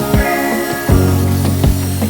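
Background music with a steady beat: sustained notes over a regular kick drum.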